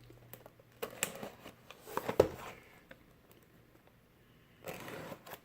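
Hands handling and starting to open a box of trading cards: scattered clicks and rustles, a sharp tap a little after two seconds in, and a longer rustle near the end.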